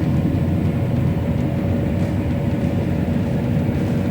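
John Deere S680 combine running while harvesting wheat: a steady drone of engine and threshing machinery with a faint, even whine above the rumble.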